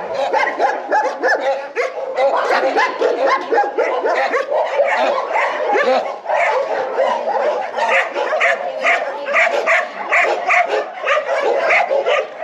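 Many shelter dogs barking and yelping at once in an overlapping, continuous chorus, with a steady run of repeated barks in the second half.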